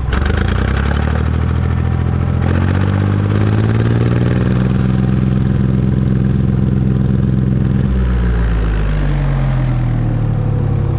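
Diesel tractor engine running, speeding up about two seconds in, holding a higher speed, then dropping back in speed near the end. The engine is starving for fuel, by the owner's account.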